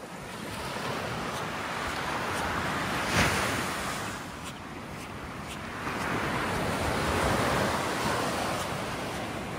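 Surf breaking and washing up a beach in two slow surges, with a sharper crash about three seconds in. Wind buffets the microphone.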